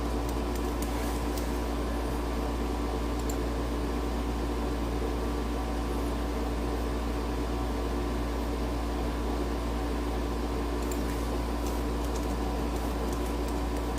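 Steady machine hum: a low rumble with a few held tones and a faint hiss, unchanging throughout, with a few faint clicks.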